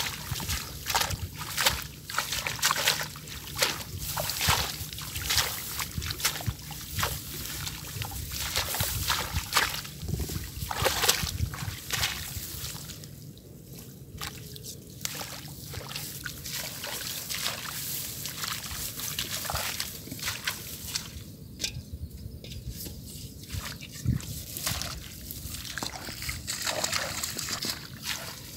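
Water sloshing and splashing in many quick, irregular splashes, busiest for the first twelve seconds or so, then sparser sloshing and trickling.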